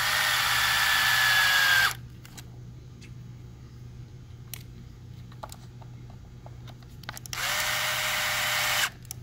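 Cordless drill/driver spinning in the servo mounting screws on an RC truck's plastic chassis: one run of about two seconds at the start and another of about a second and a half near the end, with faint clicks in between.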